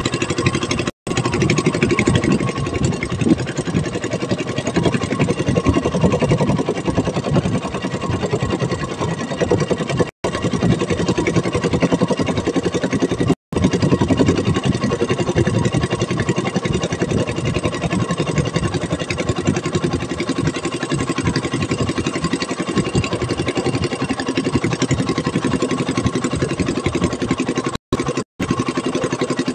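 Small fishing boat's engine running steadily while the boat is underway, with a few momentary dropouts in the sound.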